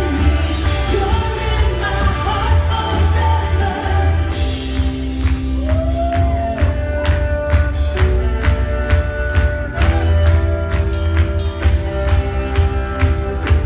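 Live worship band playing: voices singing over electric guitars and a drum kit. Singing leads at first; from about a third of the way in the drums keep a steady beat under held notes.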